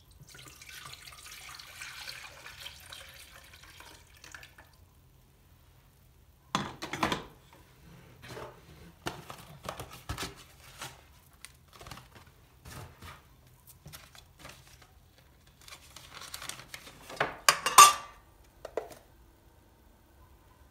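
Kitchen work sounds: water running softly for a few seconds, then scattered clinks and knocks of dishes and utensils, with a louder clatter near the end.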